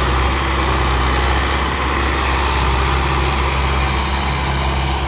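Tractor diesel engine running steadily with a deep, even note and no change in speed.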